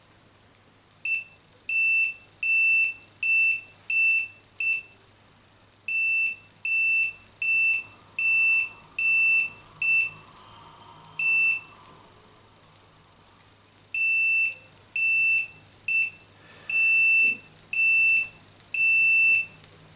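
Multimeter continuity beeper sounding in about twenty short high beeps, roughly one a second in runs with a few pauses, each starting with a sharp click. Each beep marks the mouse's left-button microswitch closing and making contact after cleaning with DeoxIT.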